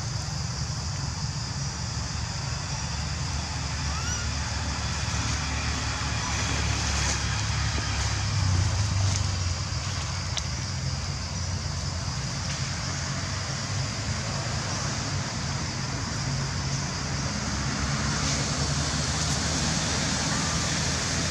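Steady low rumble under a constant high hiss of background noise, with no distinct calls.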